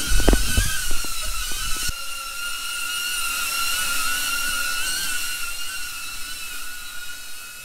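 A steady high mechanical whine that wavers slightly in pitch, with a few heavy knocks and thumps in the first two seconds.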